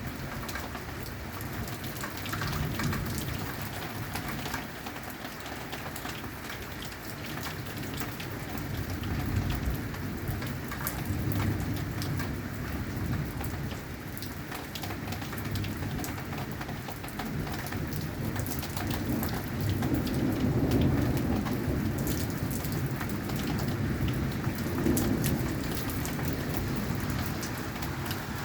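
Heavy rain falling steadily, with sharp drop ticks on a hard surface, and thunder rumbling underneath in slow swells that are loudest about 20 seconds in.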